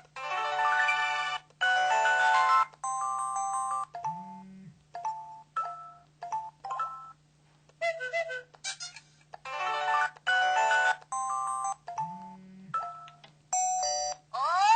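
Samsung SPH-V5100 mobile phone playing its built-in effect sounds and ring melodies through its small speaker: a string of short electronic beeps and chime-like jingles, one after another with brief gaps.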